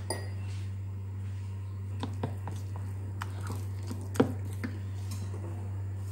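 Spatula stirring thick banana cake batter in a bowl: soft squishing with scattered light taps of the spatula against the bowl, the sharpest about four seconds in, over a steady low hum.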